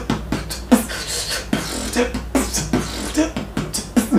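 A man beatboxing: sharp mouth-made percussive hits mixed with short vocal sounds, over a steady low hum.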